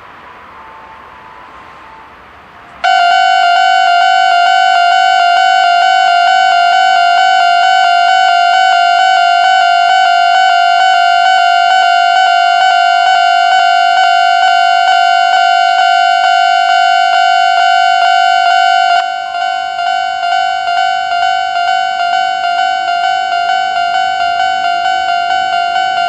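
Old-type Japanese electronic level-crossing warning bell on the Chichibu Railway, its two bells ringing out of step. It starts abruptly about three seconds in and rings loudly and steadily in rapid repeating dings. About sixteen seconds later it drops slightly in level and pulses at about two a second.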